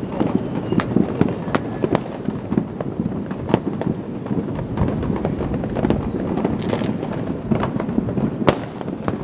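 Many fireworks and firecrackers going off at once around the neighbourhood: a steady rattle of crackles and sharp bangs, with a brief hiss about two-thirds through and one louder bang near the end.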